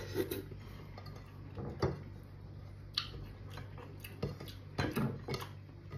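Eating by hand: scattered small clicks and taps of fingers gathering rice on a plate and mouth sounds of chewing, a few times a second at most, over a steady low hum.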